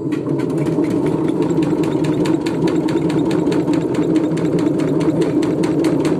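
LG washing machine drum spinning, a steady loud rumble with a fast, even knocking of about six or seven knocks a second as the machine shakes and jumps.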